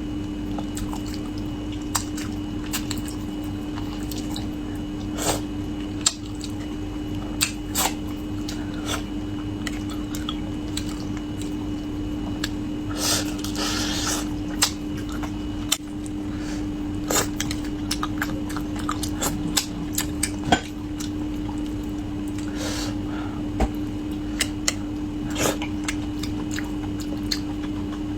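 A person eating spicy braised carp close to the microphone: chewing, biting and wet mouth smacks in short sharp clicks, with a louder noisy stretch about thirteen seconds in. A steady low hum runs underneath.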